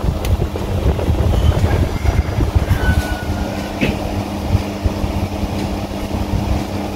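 Steady hum of an idling car with its air-conditioning fan running, heard from inside the cabin, over an uneven low rumble.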